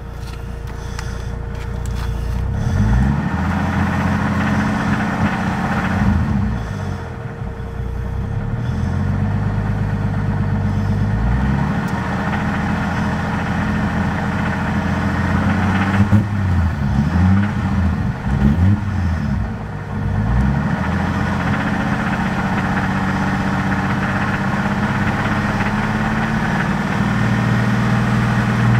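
Toyota 7M-GTE turbocharged inline-six engine, warmed up, revved up and down several times between stretches of steady running, with a knock that the owner suspects is rod knock.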